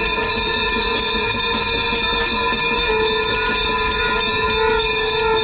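Ganga Aarti ceremony sound: brass hand bells ringing rapidly and without pause, under one long held tone that stays at a steady pitch.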